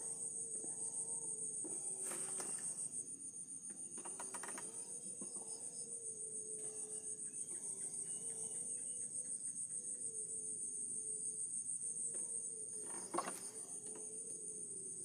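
Evening insect chorus: a steady, high, finely pulsing chirring, with a faint wavering tone underneath. A few knocks from handling, the sharpest about 13 seconds in.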